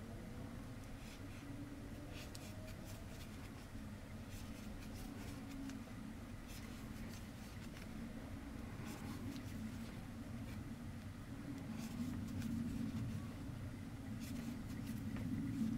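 Faint scratchy rustle and small ticks of yarn being drawn through stitches with a crochet hook, over a steady low background hum.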